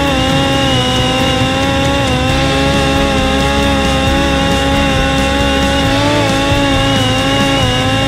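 Parrot Disco's electric motor and rear pusher propeller running steadily at about half throttle in level cruise: a steady buzzing whine whose pitch wavers slightly, over a rush of wind.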